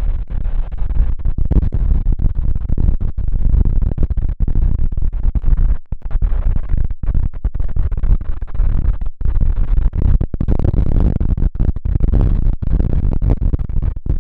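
Strong wind buffeting the microphone: a loud, ragged low rumble broken by many sudden brief dropouts.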